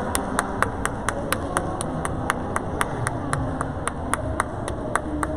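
Rhythmic clapping in steady unison, about four claps a second, over the murmur of a crowd in a large hall.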